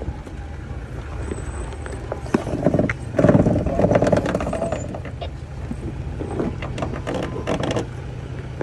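Off-road vehicle crawling over a rocky dirt trail, its engine running low under the crunch and knock of rocks under the tyres. From about two and a half seconds in, a loud tyre rub lasts a couple of seconds as the tyre rubs against the vehicle's body.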